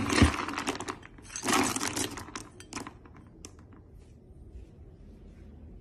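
Metal scoop digging into dry dog kibble in a plastic storage bin, the kibble rattling in two bursts, then a few scattered clicks and one sharp click about three and a half seconds in.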